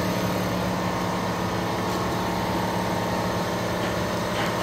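Steady mechanical drone of machinery running in a detail bay: a low hum with a higher held tone above it, unchanging throughout.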